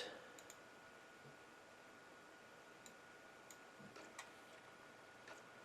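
Near silence: room tone with a faint steady high whine and a few faint, scattered clicks.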